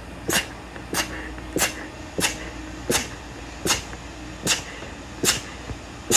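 A young woman sneezing in a rapid fit: about nine short, sharp sneezes in a row, evenly spaced a little under a second apart.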